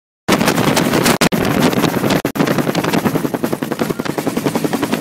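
Bell UH-1 Huey helicopter's rotor chop, a fast steady beating of the blades, cutting out briefly twice.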